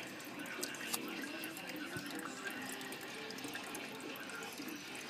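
Water trickling and dripping steadily over the rock ledge of a small turtle tank's waterfall, with many small splashes.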